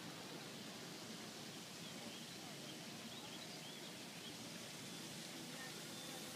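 Faint, steady outdoor hiss with a few distant bird chirps in the middle.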